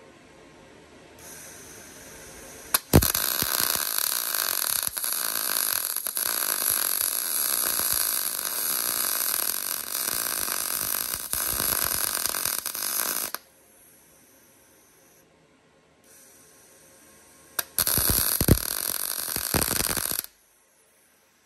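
MIG welder arc crackling as a seam is laid on a car chassis rail: one long run of about ten seconds, then a pause, then a shorter run of two to three seconds. The weld joins a 5 mm steel strengthening plate to the 1.6 mm chassis rail.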